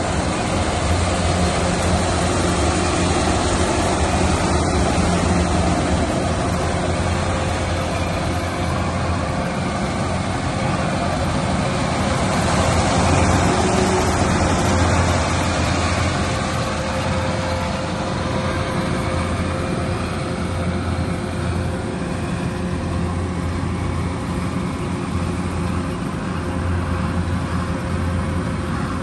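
Kubota rice combine harvester running steadily: a constant low engine drone with a steady whine above it and a broad mechanical din.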